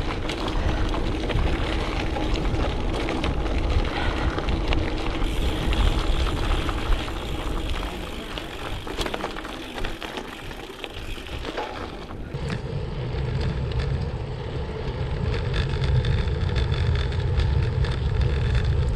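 Gravel bike tyres rolling over a gravel track while riding, with a steady low rumble and scattered sharp clicks of loose stones. About twelve seconds in, the sound turns duller and heavier in the low end.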